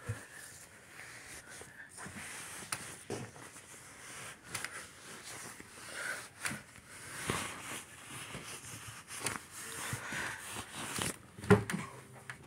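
Bedding rustling as a comforter is handled and tucked in between the mattress and the wall, with scattered soft knocks and a sharper thump near the end.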